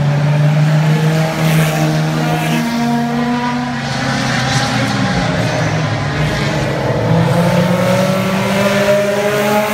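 A pack of front-wheel-drive compact race cars running laps together. Several engines sound at once at different pitches, rising and falling as the cars go by.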